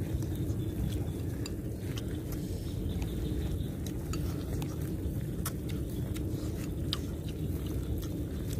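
Chopsticks clicking now and then against ceramic bowls during eating, a scatter of short sharp taps over a steady low rumble.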